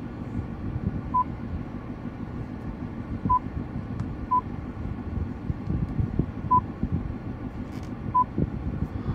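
Jaguar XF touchscreen infotainment system beeping at each tap: five short single-pitch beeps at uneven intervals, over a steady low cabin hum.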